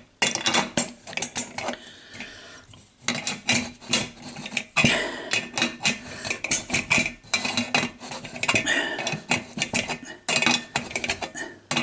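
Irregular metallic clinks, taps and scrapes as a threaded fitting on an antique paraffin blowlamp is tightened down by hand and tool onto PTFE tape to make a seal.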